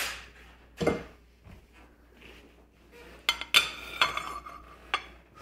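Kitchen dishes clattering: plates, a pan and metal utensils knocked and clinked together in a run of sharp knocks, busiest a little past the middle.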